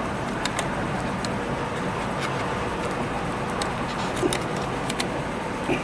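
Scattered faint clicks as a chrome windshield molding is pressed by hand into place along the windshield rubber, over a steady background hum.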